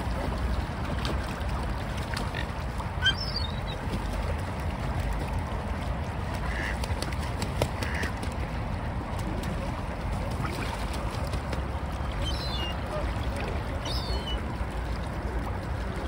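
Gulls and mallards bathing in open water: splashing and dabbling, with a few short high gull cries and a couple of duck quacks scattered through, over a steady low rumble.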